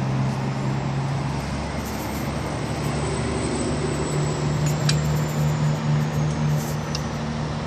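A steady low engine hum over a noisy background, its pitch stepping up slightly about two seconds in, with two faint short metallic clicks, one near the middle and one near the end.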